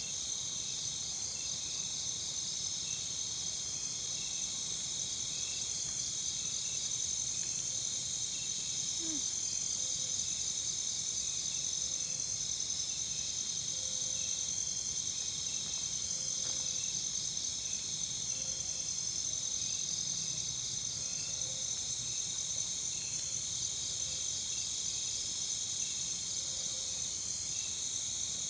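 A chorus of insects calling: a steady high buzz with several crickets chirping in even, repeating pulses.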